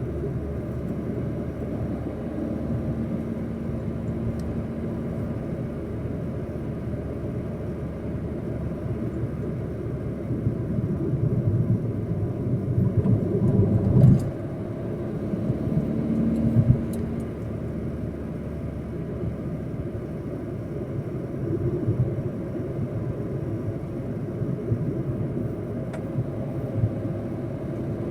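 Opel Corsa D running with a steady low rumble that builds about halfway through and drops off sharply, then rises briefly again a few seconds later. The car's turbo has failed and gives no boost.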